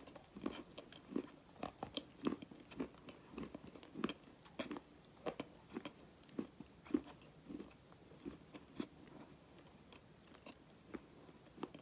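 Chewing a mouthful of dry black edible clay: irregular crunches and creaks a few times a second, growing sparser toward the end.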